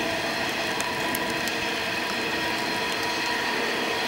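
Loaded coal hopper wagons of a long coal train rolling past: steady wheel-on-rail noise with several steady high tones and scattered sharp clicks.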